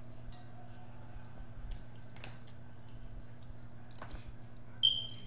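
King crab legs handled and picked apart by hand: scattered light clicks and cracks of shell, with some chewing, over a faint steady hum. Near the end a short high-pitched ding, the loudest sound.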